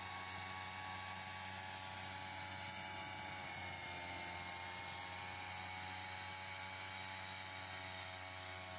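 Backpack turbine sprayer's small two-stroke engine and blower fan running steadily at high speed with a steady whine. The pitch sags slightly about four seconds in.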